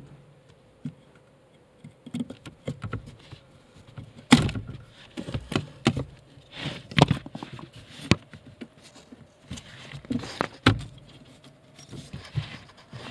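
Hands working the clevis pin and its retaining clip on the clutch pedal linkage of a 2001 Hyundai Accent, with a handful of sharp clicks among softer taps and rustling as the clutch master cylinder pushrod is worked free of the pedal.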